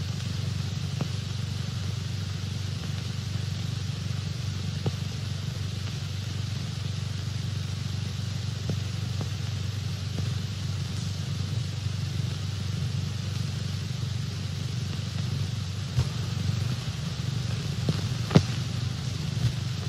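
Steady low hum and hiss of a worn early-1930s film soundtrack, with a couple of sharp clicks near the end.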